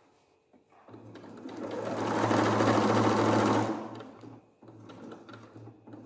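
Electric domestic sewing machine stitching through thick folded layers of upholstery fabric. It starts about a second in, runs at its fastest and loudest through the middle, then slows to quieter stop-start stitching.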